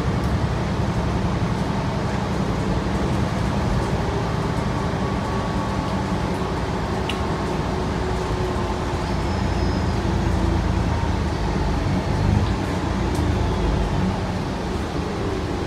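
Steady low drone and rumble of a city bus's engine and running gear, heard from inside the cabin, with a few faint ticks and rattles.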